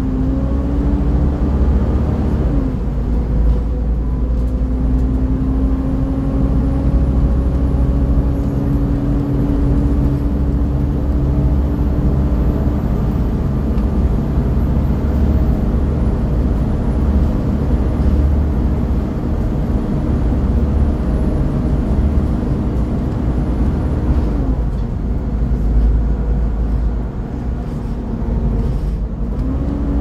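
Volvo B7TL double-decker bus with a D7C diesel engine under way: a low engine rumble with a steady whine over it, the 'hoover' sound. The whine falls away twice, a few seconds in and again near the end, and climbs back each time as the bus picks up.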